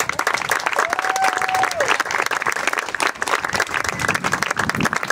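A crowd applauding, dense hand clapping that breaks out right after the poem's last line, with one short cheer about a second in.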